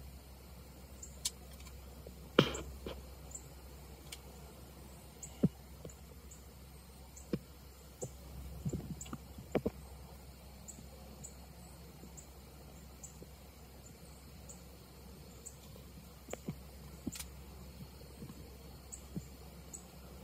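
Quiet field ambience with a faint insect chirp repeating about once or twice a second. Several sharp clicks and knocks of camera and gear handling in the blind cut through it, the loudest about two seconds in and a cluster around eight to ten seconds.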